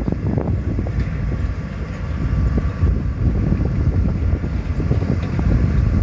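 Mitsubishi motor grader's diesel engine running steadily as the machine drives across a dirt field with its blade down, grading the soil. Wind rumbles on the microphone.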